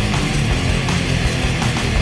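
Loud, driving hard rock intro music with distorted guitar and a steady drum beat.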